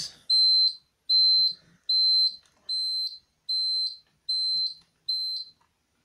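Fire alarm control panel's piezo fault buzzer beeping, a high steady tone pulsed evenly, seven beeps, about one every 0.8 s, then stopping a little after five seconds in. It is the panel's warning for a disconnected battery, which falls silent as the battery is reconnected.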